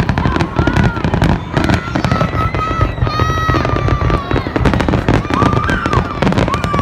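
Fireworks display: a rapid, continuous barrage of bangs and crackling, with deep booms underneath and no let-up.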